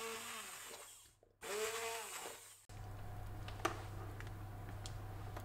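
Hand-held immersion blender puréeing a pot of pumpkin, carrot and potato soup, run in two short bursts that each spin up and wind down. It is followed by a steady low hum and a light click.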